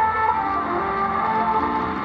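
Music from the Voice of Turkey's shortwave broadcast on 7210 kHz, played through a portable shortwave radio's speaker, with held notes and the top end cut off as on AM shortwave reception.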